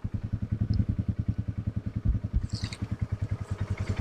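A small engine idling nearby with a steady low pulse, about a dozen beats a second, and a brief rustle or scrape near the middle.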